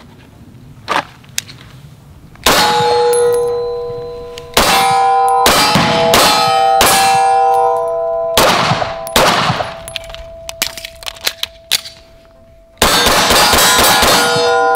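Pistol shots fired at steel targets, each hit followed by the plates ringing with clear, lingering metallic tones. There are about eight shots in uneven strings, then a gap of a few seconds and a quick final burst near the end.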